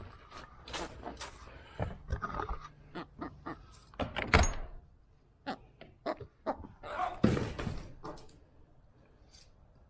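Knocks, thuds and scraping of things being handled and set down in a chicken coop, with two heavier thumps about four and seven seconds in.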